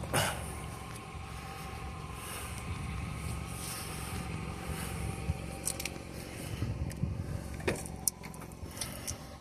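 A steady low rumble with a few sharp clicks and knocks, most of them in the second half, the loudest about eight seconds in.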